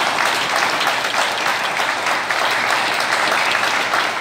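Sustained applause from a group of people clapping steadily.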